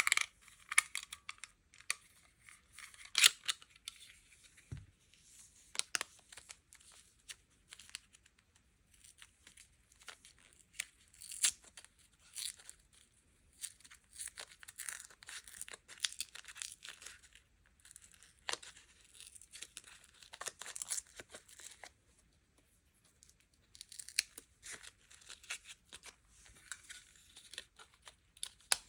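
Sweets packaging being torn and crinkled open by hand: irregular crackling rustles and sharp clicks, with a short pause about two-thirds of the way through.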